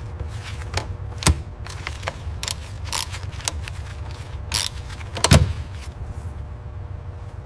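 A series of irregular sharp clicks and knocks over a steady low hum, with two louder knocks: one about a second in and a heavier, deeper one past the middle.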